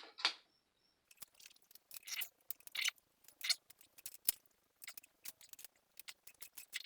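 Teflon thread-seal tape being pulled off its roll and wound around a pipe fitting's threads, making irregular small crackles and clicks.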